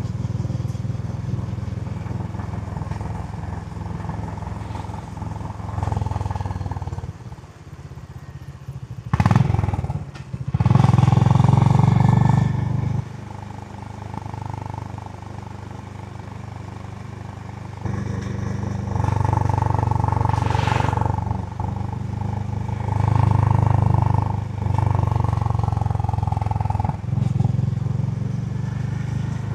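Stock Honda CB350 H'ness single-cylinder motorcycle engine being ridden, its note swelling in several throttle surges, loudest about nine to thirteen seconds in, and easing back between them.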